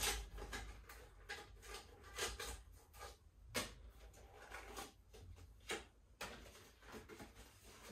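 Rolled paper calendar being handled and unrolled: light paper rustling with scattered small clicks and taps, a couple of sharper ones in the middle.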